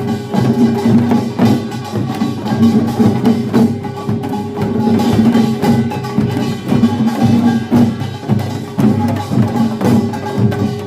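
Korean pungmul farmers' band playing: dense, rapid clanging of small gongs over drums, with steady ringing tones beneath.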